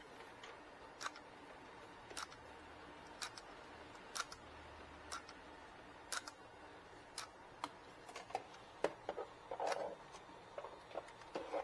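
Faint, sharp clicks about once a second, coming more quickly and mixed with light handling noise in the last few seconds.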